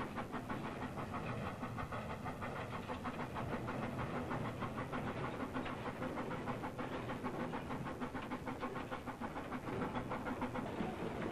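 Narrow-gauge steam locomotive running along the line, its exhaust chuffing in a quick, even rhythm.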